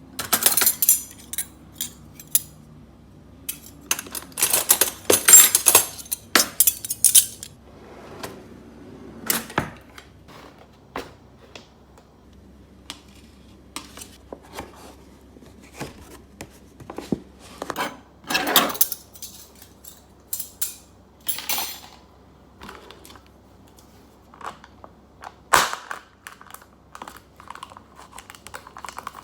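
Dishes and cutlery clinking and clattering in irregular bursts, busiest about four to seven seconds in, with a single sharp click near the end.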